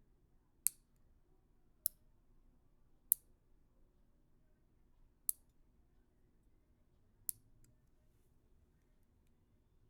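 Nail clipper clicking shut five times, each a single sharp, high click, one to two seconds apart.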